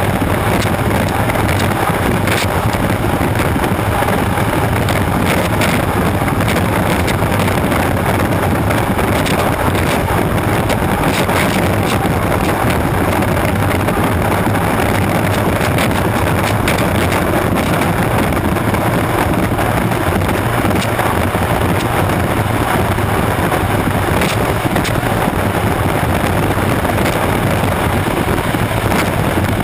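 Unlimited hydroplane's turbine engine running at race speed, heard from on board, mixed with heavy wind on the microphone and rushing water spray. A steady, loud wash of noise with a few short buffets.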